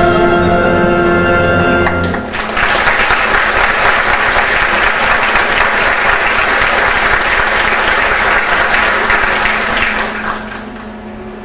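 Two singers and a pit orchestra hold the final note of a song, which ends about two seconds in; audience applause follows at once and fades out near the end.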